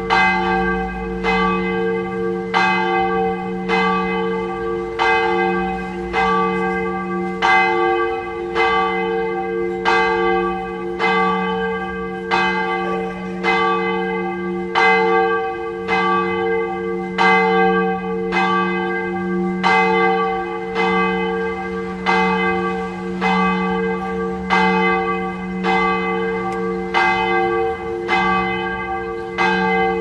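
Bronze church bell tolling, struck about once a second at an even pace, each stroke ringing on so that the bell's low tones hum on steadily between strikes.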